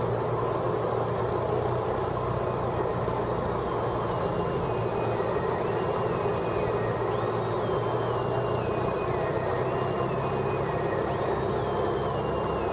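Cessna's piston engine and propeller droning steadily, heard from inside the cockpit. From a few seconds in, a faint high tone repeats every couple of seconds, stepping down in pitch each time.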